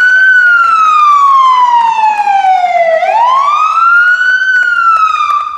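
Fire engine siren wailing: the pitch climbs quickly, falls slowly over nearly three seconds, climbs again, then starts to fall and fades out near the end.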